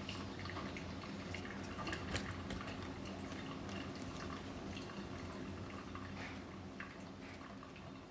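Cuisinart DCC-3200 drip coffee maker brewing: coffee dripping into the carafe in quick, irregular drops over a steady low hum.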